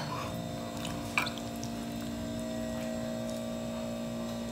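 Quiet room tone: a steady low hum, with one faint click about a second in.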